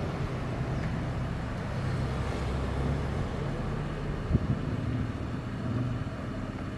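Steady low rumble, with one soft knock about four and a half seconds in.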